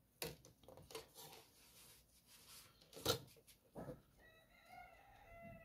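Scattered light clicks and taps of drafting tools on the drawing board, the loudest about three seconds in. Near the end a faint, drawn-out pitched sound comes in.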